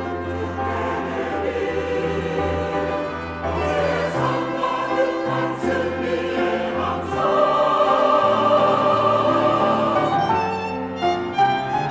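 Church choir singing a sustained choral anthem with instrumental accompaniment, swelling louder about seven seconds in.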